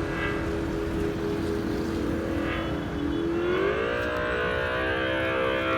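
Ola S1 Pro electric scooter's artificial 'Bolt' mode motor sound playing from its speaker: a steady engine-like hum whose pitch rises about three and a half seconds in, then holds.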